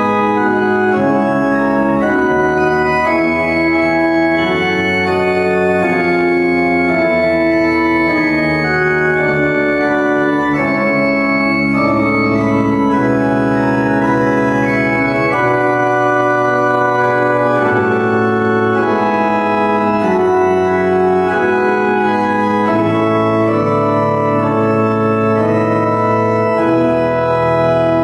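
Pipe organ playing a slow chorale: sustained chords that change every second or two over low bass notes, at a steady volume.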